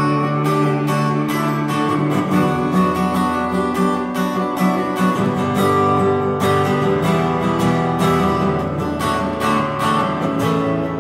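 Acoustic guitar strummed steadily, several strokes a second, with no singing.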